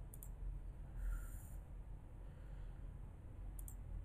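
Two faint computer mouse clicks, one just after the start and one near the end, over a low steady hum of background noise, with a brief soft sound about a second in.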